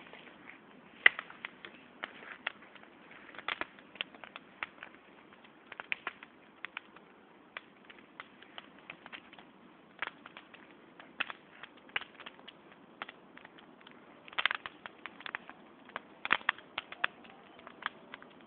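Bonfire crackling: irregular sharp pops and snaps, thickening into quick clusters a few times.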